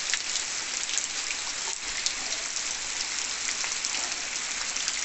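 Heavy rain falling steadily, an even hiss of many drops.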